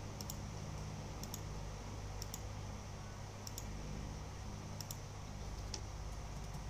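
Light sharp clicks, most of them quick double clicks, about once a second, like keys or buttons being pressed, over a steady low hum.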